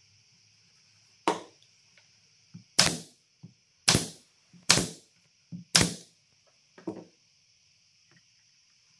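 Hard strikes on wood in a workshop: about six sharp knocks roughly a second apart, some with a lighter tap just before.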